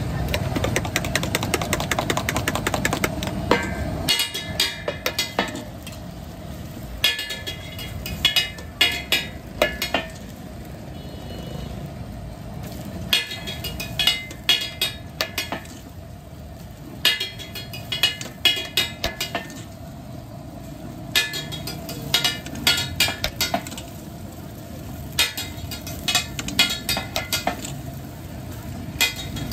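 Rapid metal clinking of a spoon beating eggs in a steel cup, in repeated bursts of a second or two, over the steady sizzle of eggs frying on a hot flat griddle.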